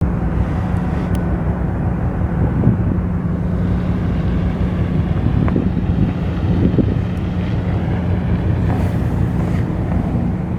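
Heavy machinery running steadily: a loud, even low hum, with a few faint knocks and clicks over it.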